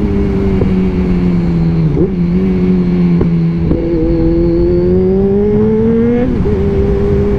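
Kawasaki Z1000's inline-four engine running under way through a single exhaust, without backfire popping. The note holds steady, dips briefly about two seconds in, then rises slowly and drops off sharply near the end.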